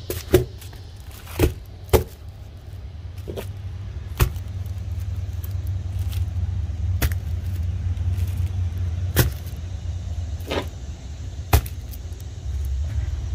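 A steady low rumble with about eight sharp knocks or clicks, spaced irregularly a second or more apart, the loudest near the start.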